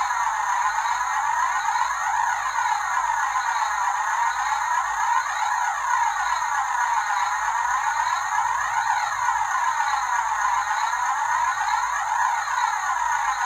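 A steady whooshing hiss with a sweeping phaser effect that rises and falls in pitch about every three seconds, in the manner of an electronic soundtrack.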